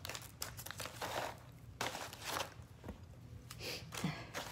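Snack bag of roasted chickpeas rustling and crinkling in the hands in a few short bursts as it is handled.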